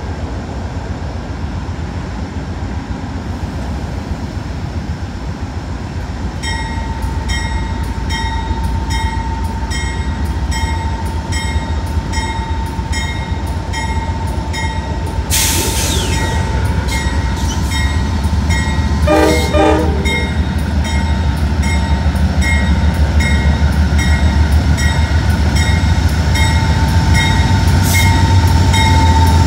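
Amtrak GE P42DC diesel locomotive approaching slowly, its engine rumble growing louder as it nears. Its bell starts ringing steadily about six seconds in. About halfway through there is a brief hiss, and soon after a short horn blast.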